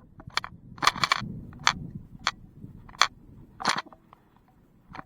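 A string of irregular sharp clicks and knocks, some in quick clusters, over a low wind rumble.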